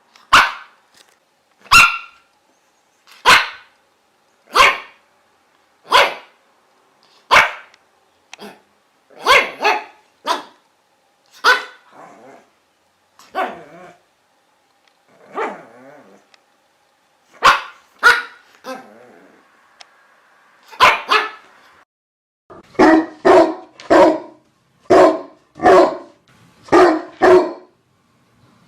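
A dog barking: single sharp barks about every one and a half seconds, a few lower, softer ones in the middle, then a faster run of barks, some in quick pairs, over the last several seconds.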